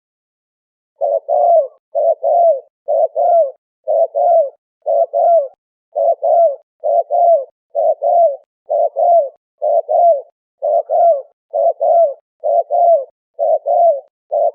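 Spotted dove (terkukur) cooing: short two-note coo phrases repeated about once a second, starting about a second in, with dead-quiet gaps between them. This is a recording played as a lure call.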